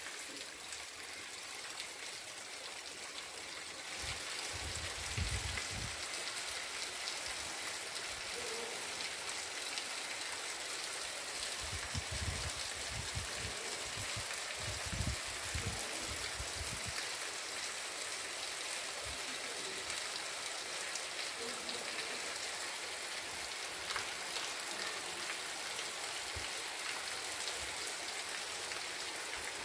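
Rainwater runoff flowing in a sheet over a cobblestone street during heavy rain, a steady rushing hiss that grows a little louder about four seconds in. Occasional low bumps come through, mostly in the middle.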